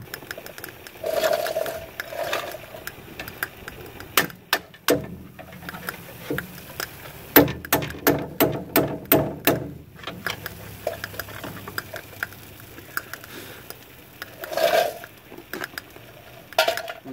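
Hammer blows on a steel punch held against a broken, torch-heated shock bolt in the rear shock mount, to drive it out. A few single knocks come first, then a run of sharp, ringing metal strikes about two a second for a couple of seconds.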